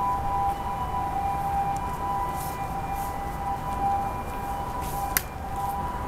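A steady whine of two held tones, one slightly higher than the other, over a low rumble, with one sharp click about five seconds in.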